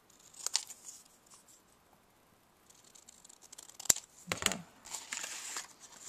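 Scissors snipping through cardstock, one cut about half a second in. Later a run of small clicks and one sharp click, then paper rustling as pieces of cardstock are handled.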